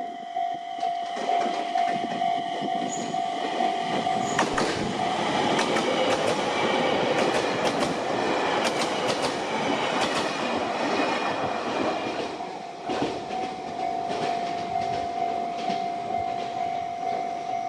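Level-crossing alarm sounding its steady electronic tone while a train passes over the crossing, its wheels clacking over the rail joints. The train noise builds from about a second in, is loudest around the middle and fades after about twelve seconds, leaving the alarm tone alone again.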